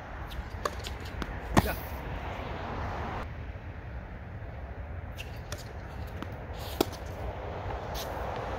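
Tennis ball being struck by rackets and bouncing: a scatter of sharp pops, the loudest about a second and a half in and another strong one near seven seconds, over a steady low rumble.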